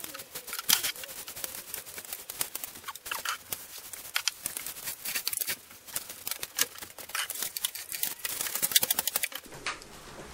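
Flat mop applicator spreading wet floor wax over wooden flooring, giving a dense, irregular clicking and ticking as the pad slides over the boards.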